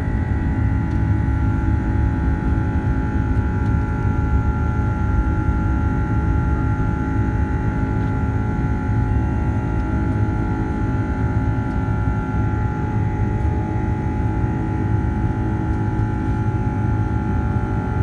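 Airbus A330-200's Rolls-Royce Trent 700 turbofan engines heard from inside the cabin during the climb after takeoff: a steady low roar with several steady whining tones above it.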